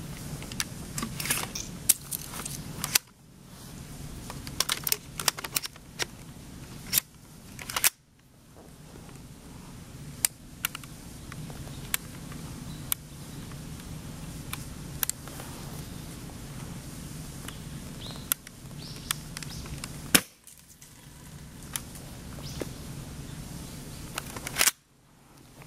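S&T M203-type airsoft grenade launcher firing gas-charged shells: several sharp pops, among many lighter clicks and ticks.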